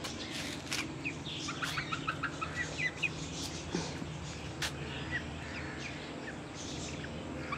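Backyard hens and young ducks calling, with a quick run of short chirping notes about two seconds in and scattered single chirps after, over a steady low hum.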